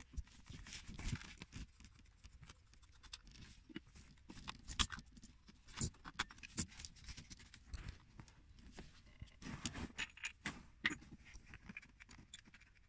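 Irregular clicks, knocks and light metal rattles of hands and tools working on a car's starter motor, at its terminal nut and wiring.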